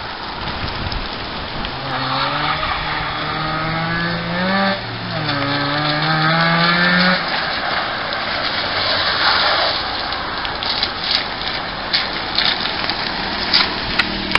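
Freshly tuned 1985 Mazda RX-7's rotary engine accelerating hard: its note climbs steadily, drops sharply at a gear change about five seconds in, and climbs again. After that the engine note gives way to steady road noise.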